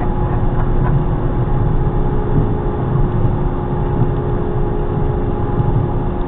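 A vehicle engine running steadily: a continuous low rumble with a faint steady hum over it.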